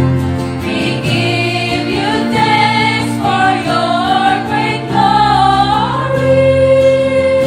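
A choir singing in parts, several voices gliding between notes over steady, held low notes.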